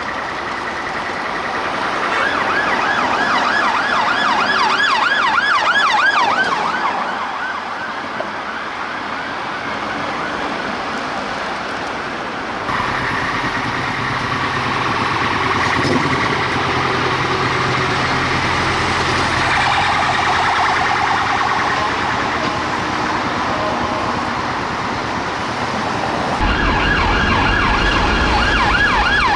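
Metropolitan Police BMW X3 area car's electronic siren passing at close range, switching from a fast warbling yelp to a slower wail. About halfway through, a deep low siren tone joins it, the Howler siren used on this car. Near the end another police car's fast yelp siren takes over.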